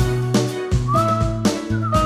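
Upbeat title theme music: a lead melody over a bass line and a steady drum beat.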